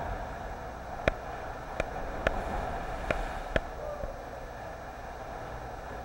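Sea water sloshing and lapping around a kayak inside a rock sea cave: a steady rush, with five sharp clicks between about one and four seconds in.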